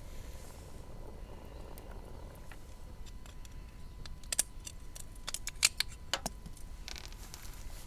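A handful of sharp clicks and clacks a little past the middle, over a steady low background rumble, followed by a brief hiss.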